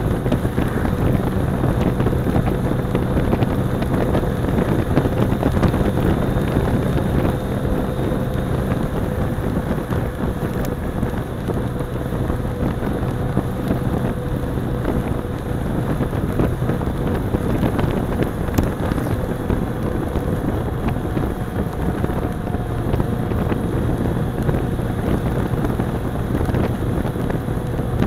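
Vespa Primavera scooter running at a steady cruising speed on the road, its engine hum mixed with wind rushing over the microphone mounted behind the windshield.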